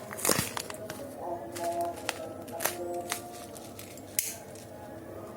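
Rustling and several sharp clicks from a parcel being handled and opened, the loudest about a third of a second in.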